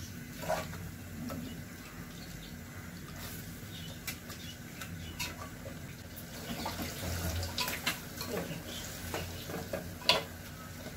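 Metal spoon stirring and scraping mutton masala in a pressure cooker pot, with irregular clinks and scrapes against the pot over a steady low sizzle of the meat frying on a high gas flame.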